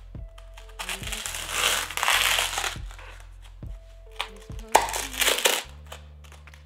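Kitchen knife cutting through crisp wafer sheets on a wooden board, crunching and crackling for about two seconds starting a second in, then again briefly near the end. Soft background music plays under it.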